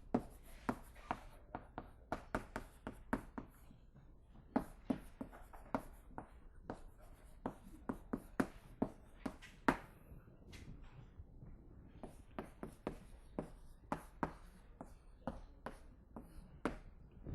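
Writing by hand: a run of faint, irregular taps and short strokes, a few a second with brief pauses.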